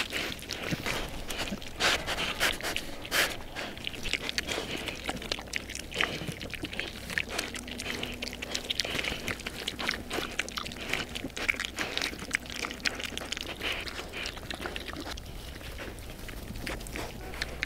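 Young pigs, about 12 weeks old, eating vegetable scraps up close: chewing and crunching, and rooting through the straw, in a dense run of short crunches and clicks.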